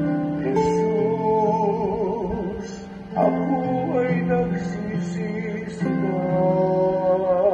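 A man singing a slow song in long, wavering held notes over strummed acoustic guitar, a new phrase starting about three seconds in.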